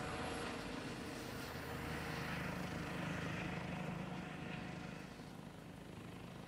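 Medical helicopter flying away, a steady drone of rotor and engine that grows fainter about five seconds in as it recedes.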